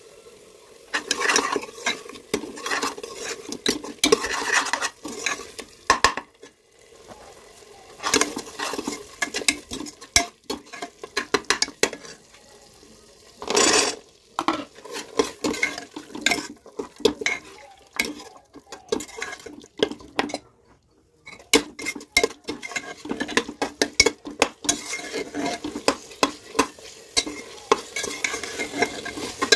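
Steel ladle stirring and scraping thick frying masala in a metal pot, with irregular clicks and knocks of the ladle against the pot and a light sizzle. About halfway through, chickpeas go in with a short loud hiss, and the stirring and scraping carry on through the chickpeas.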